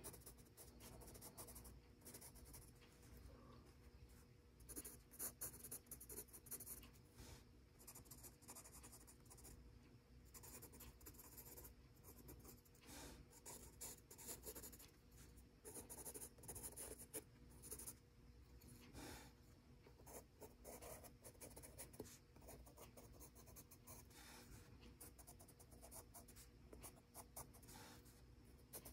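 Faber-Castell Pitt Graphite Matt HB pencil scratching faintly across gray sketchbook paper, in runs of quick shading strokes with brief pauses between them.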